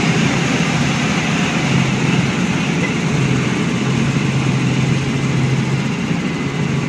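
Helicopter engine and rotor noise heard from inside the cabin, a loud, steady drone with a low hum and a wash of noise over it.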